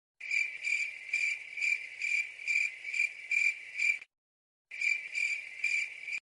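Cricket chirping sound effect, the stock meme cue for an awkward silence: a high chirp repeating about twice a second, which breaks off briefly about four seconds in and then resumes.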